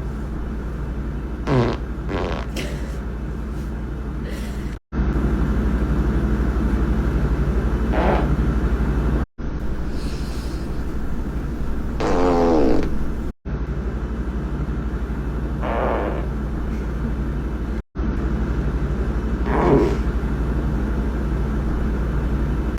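Human farts, several in a row: short, pitched, sputtering blasts, one to three per clip, the longest a wavering one just past the middle, over a steady low rumble. Hard cuts break the sound about every four to five seconds.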